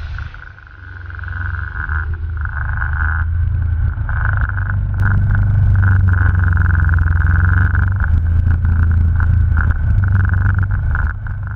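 Off-road vehicle engine running as it drives over a rocky trail: a steady low drone with a high whine above it, growing louder over the first few seconds. Rattles and knocks from the bumps come through in the second half.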